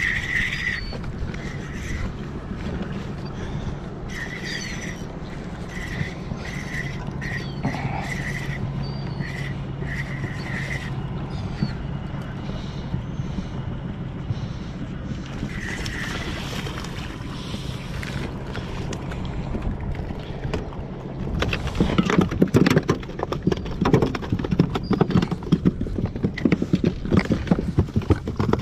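A boat motor hums steadily, with short high chirps repeating over the first part. About two-thirds of the way through, loud irregular clattering and rustling start as gear is handled on the boat's deck.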